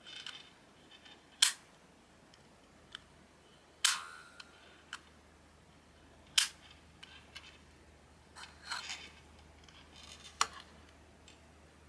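Small plastic Magic Sword novelty toy snapping as it is worked by hand: four sharp, loud clicks about two and a half seconds apart, with lighter clicks and a brief rattle between them.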